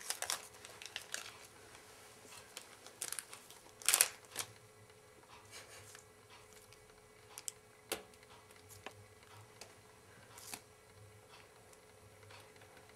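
A kitten batting and pawing a crinkly plastic candy wrapper on a wooden floor: short bursts of crinkling and rustling, loudest about four seconds in, then a few isolated sharp ticks.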